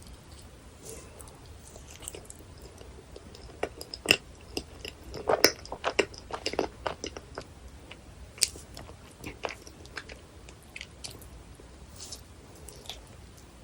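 Close-miked chewing of dense, fudgy cheesecake, with many short sharp mouth clicks, thickest around the middle.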